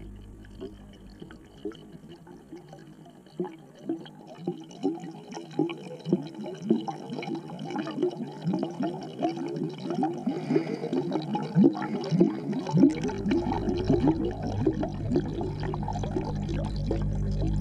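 Air bubbles bubbling and gurgling underwater in a fish tank, heard through a submerged camera: many short pitched blips, sparse at first and thickening after a few seconds. A low steady hum comes in about two-thirds of the way through.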